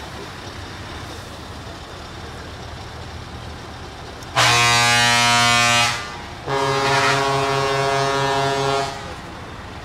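Truck air horns sound two long blasts over a steady rumble of truck engines and traffic. The first blast lasts about a second and a half. The second lasts about two and a half seconds and is on a different pitch.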